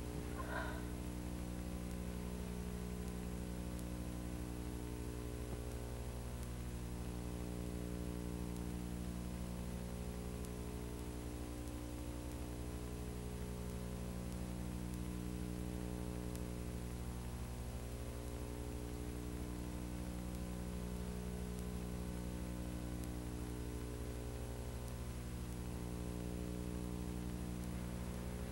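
A steady low drone of several held tones over a soft hiss, dipping briefly about every six seconds.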